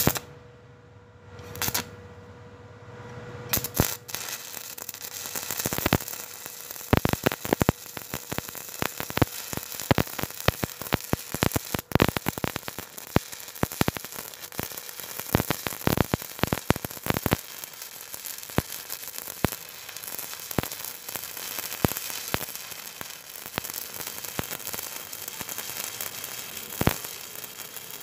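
Stick welding arc from a 6013 electrode burning on steel: a steady crackling sizzle full of sharp pops. The arc flares at the start, drops back, and then runs continuously from about four seconds in.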